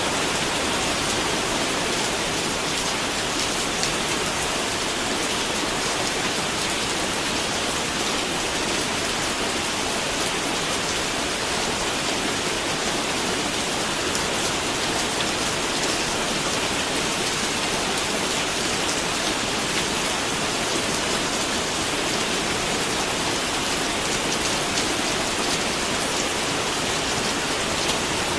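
Steady rain falling, a dense even hiss of drops with no thunder.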